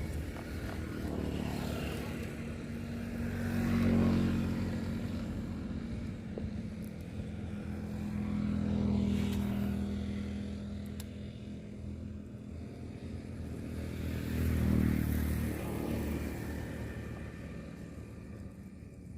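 A small engine running with a low steady hum, swelling louder and easing off three times, then fading near the end.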